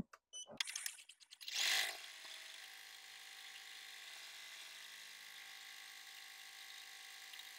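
Embroidery machine starting the final stitch of the design: a few clicks, a short burst of noise about two seconds in, then the machine running steadily and faintly.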